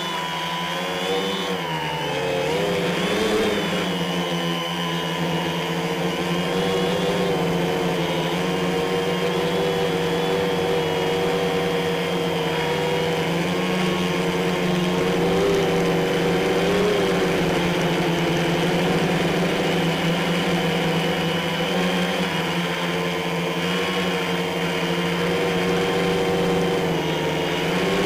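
Quadcopter's electric motors and propellers buzzing with a steady hum in flight, heard from a camera mounted on its frame. The pitch wavers up and down in the first few seconds, then holds steady.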